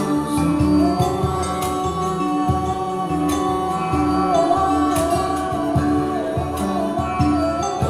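Kora plucked in a repeating pattern, with a man singing one long, wavering, ornamented melody line over it.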